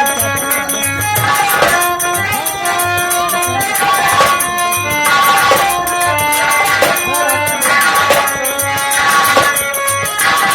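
Nautanki folk-theatre music: a melody of held notes over a steady, regular drum beat.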